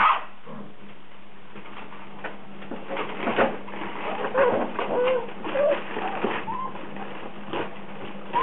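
Rhodesian Ridgeback puppies whimpering and squeaking in short, high cries that bend in pitch, several in a row partway through, with soft clicks and scuffling between them.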